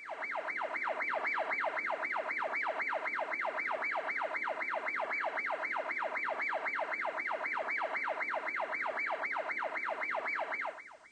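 Electronic siren in a fast yelp, its pitch sweeping down and back about four times a second, starting and cutting off abruptly.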